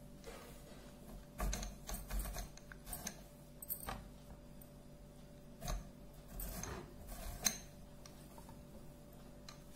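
Handling noise: a scattering of light clicks and taps as a hand moves mango slices and plates, the sharpest tap about three quarters of the way in, over a faint steady hum.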